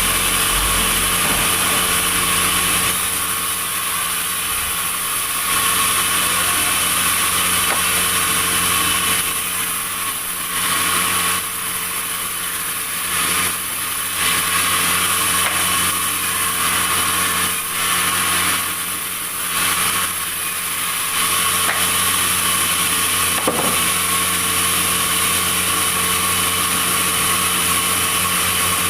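Sawmill machinery running steadily, its saw cutting wood with a constant hum and high hiss; the level dips briefly a few times midway.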